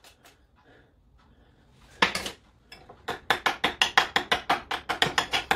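A metal utensil clinking against a ceramic bowl of mayonnaise sauce: one knock about two seconds in, then a fast run of light taps, about six a second.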